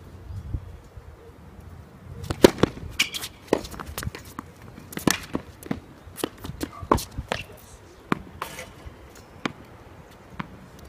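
Tennis balls being hit with rackets and bouncing on the court in a quick exchange: a run of sharp pops and thuds, several a second and some in close pairs, that starts about two seconds in and thins out near the end.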